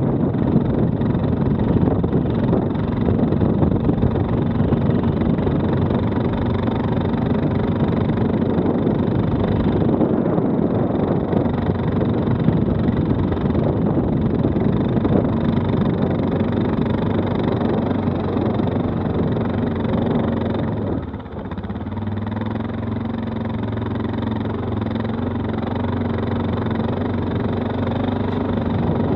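Stels 800D quad bike's engine running steadily under way, with rough, noisy ride sound over it. About two-thirds of the way in the sound dips briefly, then the engine settles to a steadier, slightly quieter note.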